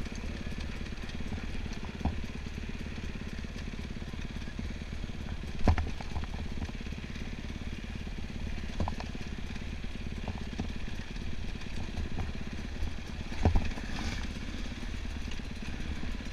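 Enduro motorcycle engine running at a steady, low pace, with a few sharp knocks, the loudest about six seconds in.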